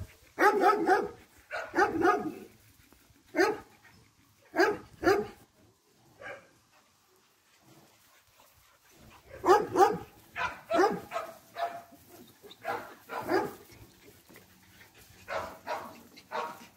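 Dogs barking in short, repeated bursts while playing, with a quiet gap of a few seconds near the middle.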